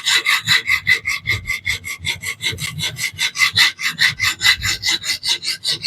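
Coarse diamond sharpening plate on a fixed-angle sharpener rasping along a DC53 steel knife edge in fast, even back-and-forth strokes, about six a second. It is aggressive stock removal to reprofile the edge, and a burr has been raised.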